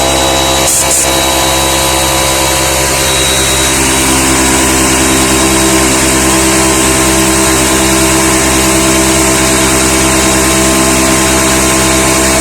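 Einhell oil-free portable air compressor (8 bar, 6-litre tank) running steadily on its first run. Its motor and pump hum at a constant pitch as it fills the tank toward its 8 bar automatic cut-out.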